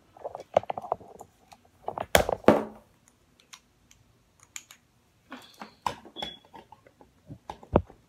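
Handling noise of a ring light being picked up and moved about: scattered clicks, knocks and rustles. There is a louder cluster about two seconds in and a sharp knock near the end.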